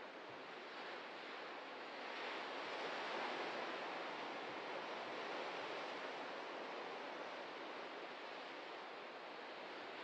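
Ocean surf breaking and washing in, a steady rush that swells about two seconds in and slowly eases off.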